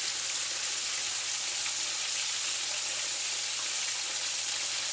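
Flour-dredged thin pork chops frying in hot oil in a skillet: a steady sizzling hiss with fine crackling.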